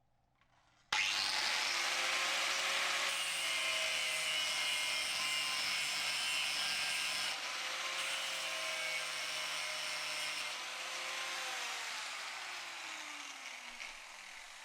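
Electric power tool running and working steel, a steady motor tone under a harsh, dense hiss. Near the end the motor's pitch falls steadily as it slows.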